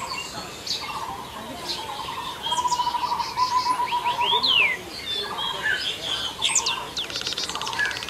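Several birds calling at once: scattered high chirps and whistles, a few of them sliding down in pitch, with a rapid trill through the middle.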